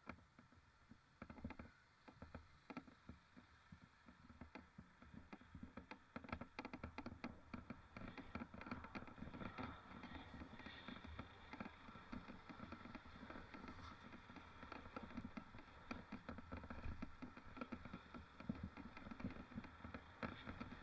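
Mountain bike rolling over rough ground: faint, irregular rattling and clicking over a low rumble, getting much busier about six seconds in.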